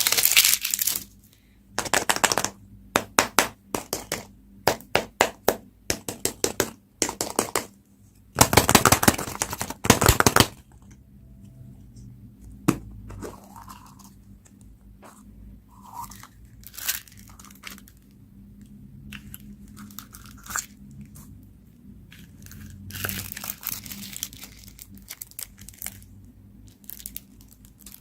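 Candy and toy packaging crinkling and tearing as it is opened by hand, in dense bursts of crackling for the first ten seconds. After that come quieter, scattered rustles and clicks.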